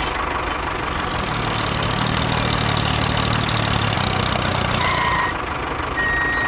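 A heavy engine runs steadily, with a low hum that grows stronger for a few seconds in the middle. Short high steady tones sound about five seconds in and again near the end.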